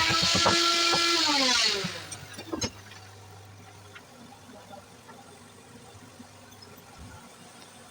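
Electric power tool's motor running at a steady high-pitched whine, then switched off and spinning down, falling in pitch and fading about two seconds in. A single sharp knock follows, then only a faint low hum.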